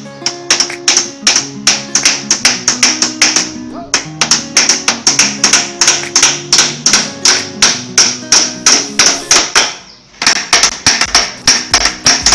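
Background music: a fast, plucked-guitar tune with sharp, rhythmic strikes, several a second, breaking off briefly about ten seconds in.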